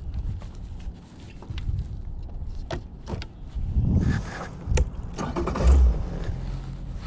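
Fishing gear being handled on a boat: the rod set down into its holder and hands on the console, making scattered clicks and knocks with a couple of dull thumps about four and six seconds in, over a low rumble.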